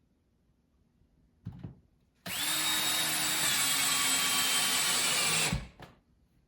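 Power drill running in one continuous pull of about three seconds, a steady high whine that sags slightly in pitch before stopping abruptly, with a brief shorter sound about a second before it starts.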